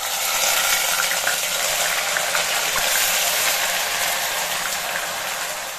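Ground onion paste sizzling in hot mustard oil, starting suddenly as the wet paste hits the oil. The loud, steady hiss eases slightly toward the end.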